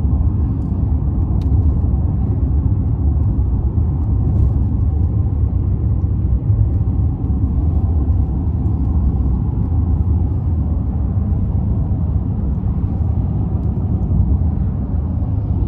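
Steady low road rumble of a moving car, heard inside the cabin from the back seat.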